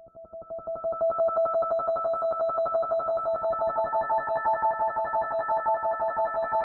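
Synthesizer tones with a fast tremolo flutter, swelling in over about a second; a second, higher note joins about two seconds in and holds as a sustained interval.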